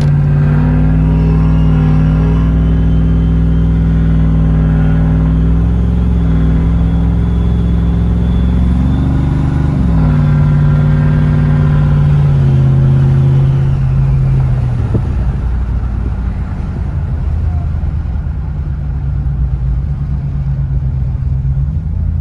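Turbocharged Ram 1500's 5.7 L Hemi V8, heard from inside the cab while driving at low speed. The engine note steps down twice as the transmission shifts, with a faint high whine rising over it, then drops and quietens after about fourteen seconds as the truck eases off.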